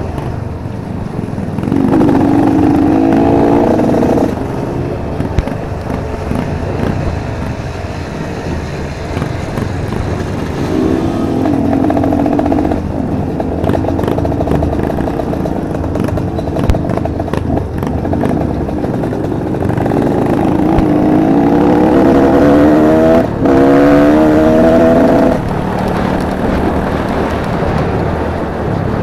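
Trail-bike motorcycle engine accelerating in three spells, its pitch climbing each time, with a brief cut in the sound during the last one as it shifts gear.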